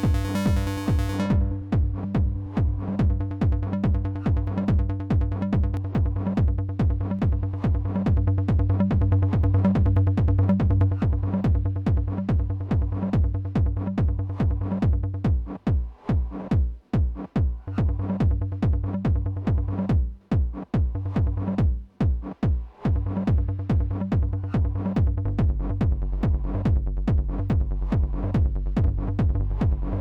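Hardgroove techno loop playing back from Ableton Live: a steady, evenly repeating kick and percussion pattern. A held synth chord cuts off about a second in, the loop drops out briefly a few times in the middle, and a low synth bassline comes in about 25 seconds in.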